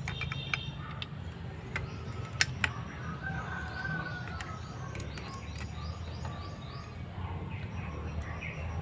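Birds chirping in the background, with a run of short, quick, falling chirps through the middle, over a steady low hum. Two sharp clicks about two and a half seconds in are the loudest sounds.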